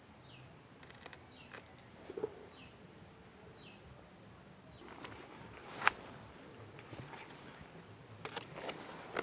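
Quiet rural outdoor ambience: a thin steady high insect whine, with short falling bird chirps in the first few seconds. A few sharp clicks or snaps cut through, the loudest about six seconds in and a cluster near the end.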